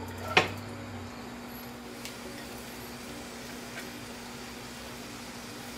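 Diced onions tipped from a glass bowl into a skillet: one sharp knock about half a second in, then a couple of faint taps, over a steady low hum.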